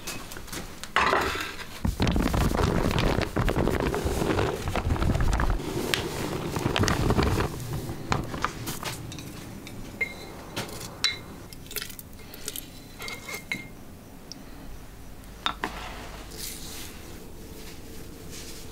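Kitchen handling sounds of basin and utensils: a few seconds of loud scraping and clattering in the first half, then scattered light clicks and short clinks of chopsticks against a glass honey jar.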